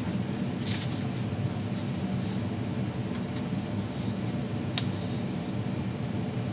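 Steady low background hum of room noise, with a few faint brief rustles and a single sharp tick just before five seconds in.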